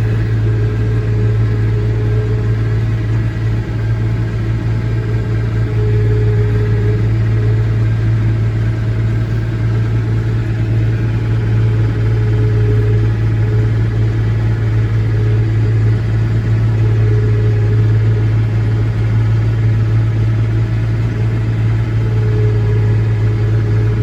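Massey Ferguson 1105 tractor's six-cylinder diesel engine running steadily at slow ground speed while driving a John Deere 335 round baler as it picks up hay for a first bale. A higher hum swells briefly every five or six seconds over the engine's steady low drone.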